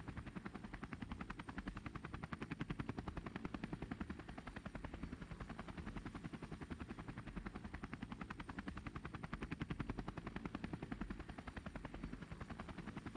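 Rotor blades beating in a steady, rapid rhythm, like a helicopter in flight, swelling slightly in loudness now and then.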